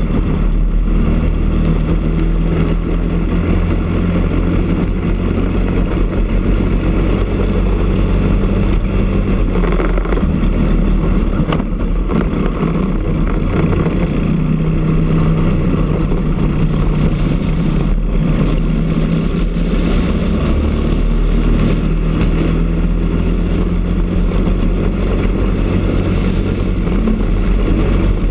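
Briggs & Stratton LO206 four-stroke single-cylinder kart engine running hard at racing speed, heard from on board the kart. The engine note drops as the kart slows for a corner about halfway, then climbs again as it accelerates down the following straight.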